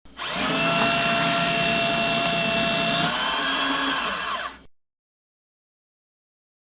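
Paper shredder motor starting up and running with a steady whine. The pitch steps up slightly about three seconds in, then the motor winds down and stops after about four and a half seconds.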